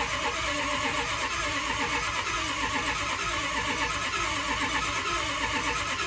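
Starter cranking a Ford 6.0L Power Stroke V8 diesel with an even, rapid pulsing, and the engine never fires. This is a crank-no-start with zero injection control pressure, which the owner takes for a large high-pressure oil leak or a failed high-pressure oil pump.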